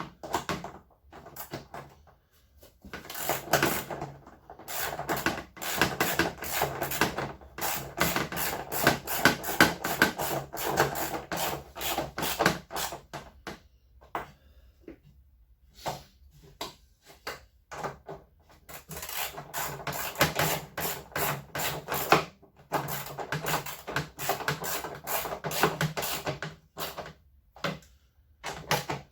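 A bolt on an LG washing machine being tightened with a hand tool: rapid, rasping clicking in two long runs, with a pause between them.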